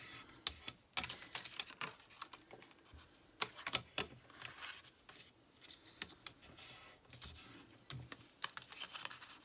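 Black cardstock pieces being handled and folded by hand on a craft mat: irregular light clicks and taps of card and long fingernails against the mat, with occasional soft scraping of the card.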